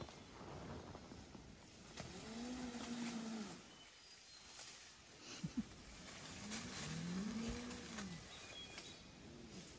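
An animal calling: two long, low calls that rise and fall in pitch, about four seconds apart, then a fainter, shorter one near the end.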